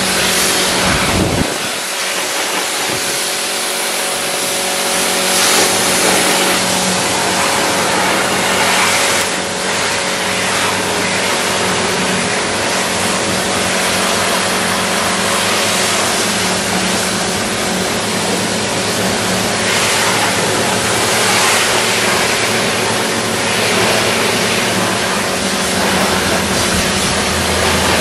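Pressure washer running: the pump motor hums steadily under the hiss of the high-pressure water jet striking a car's muddy front bumper.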